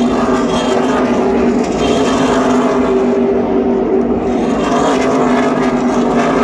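NASCAR Truck Series race trucks' V8 engines running, a loud, steady drone.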